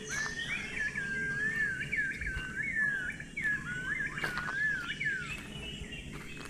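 Orange-breasted green pigeon singing: one long, mellow whistle that wavers up and down in pitch for about five seconds, then stops.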